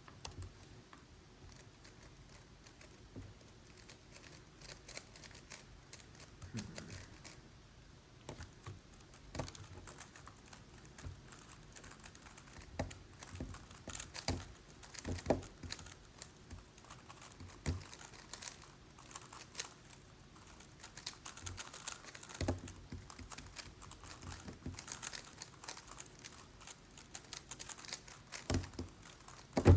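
Megaminx puzzle being turned during a timed speedsolve: a steady run of quick, irregular plastic clicks and clacks.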